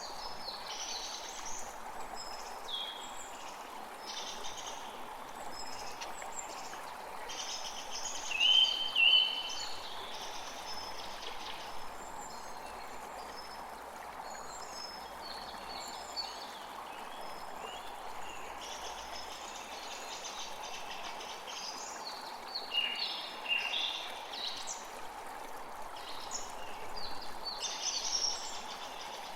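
Creek water flowing steadily, with songbirds calling and singing over it in short phrases throughout; the loudest are two strong calls about eight to nine seconds in and a busier run of song near the end.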